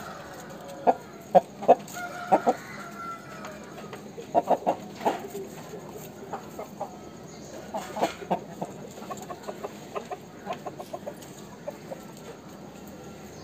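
Aseel chickens clucking: short, sharp clucks in quick bunches of two to four, with one longer drawn-out call about two seconds in.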